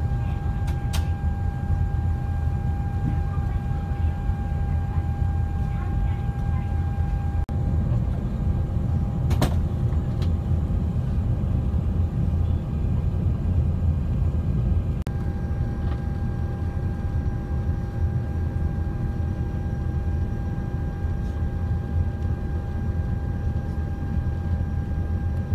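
Sado Kisen jetfoil under way, heard from inside the cabin: a loud, steady low drone with a thin steady whine over it. There is a single sharp click about nine seconds in, and the whine fades for a few seconds after it before returning.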